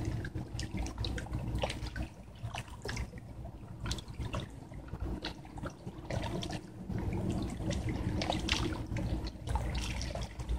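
Small lake waves lapping and splashing irregularly against the stones of the shore, over a steady low rumble.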